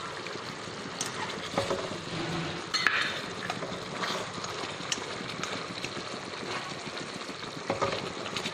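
Fermented snakehead fish frying in a pan in a thickened sugar sauce, sizzling steadily while a utensil stirs it. Short knocks and scrapes of the utensil against the pan come every second or two.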